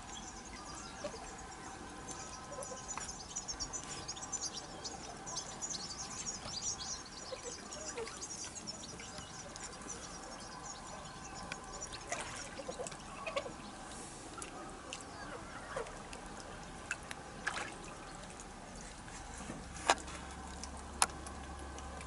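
Outdoor ambience of small birds twittering, a dense run of high chirps through the first half that thins out later, over a faint steady hum. A few sharp clicks stand out near the end.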